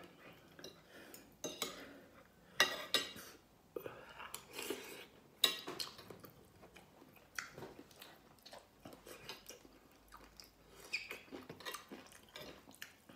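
Chewing and mouth sounds of someone eating rice and chicken, with scattered clicks of a spoon and fork against a plate.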